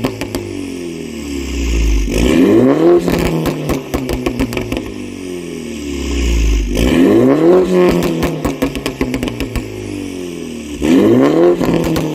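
MINI John Cooper Works turbocharged four-cylinder through a Remus aftermarket exhaust, revved up three times about four seconds apart. Each time the revs fall back there is a quick run of crackles and pops from the exhaust.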